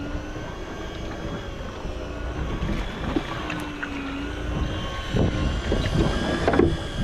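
A boat's motor humming steadily, with wind buffeting the microphone. Several short knocks come about five to seven seconds in, as a snapper is swung over the gunwale.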